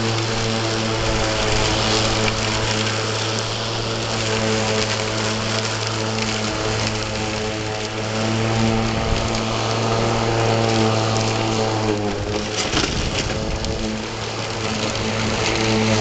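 Electric lawnmower motor on a homemade remote-control robotic mower, running with a steady hum while it cuts grass; the pitch dips slightly and a rougher burst comes in about twelve seconds in.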